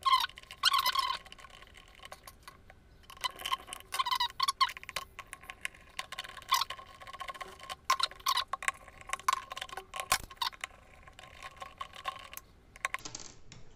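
A screwdriver undoing the small screws in an electric kettle's base: a run of small irregular clicks, scrapes and brief squeaks.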